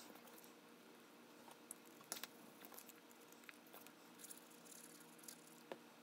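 Faint handling of small cardstock pieces on a tabletop: soft paper rustles and light taps, with the sharpest taps about two seconds in and shortly before the end, over a low steady room hum.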